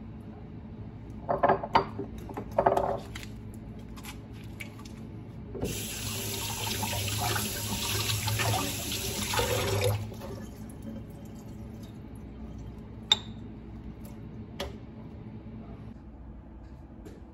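A few sharp knocks and clatters, then a water tap running for about four seconds before it is turned off. Later come a couple of single clicks.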